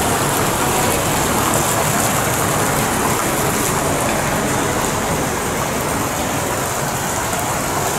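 Water from an indoor fountain pool splashing steadily: an even, rain-like rushing hiss.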